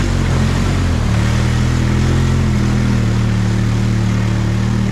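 ATV engine running loud, its pitch dipping and rising in the first second, then holding at fairly steady revs.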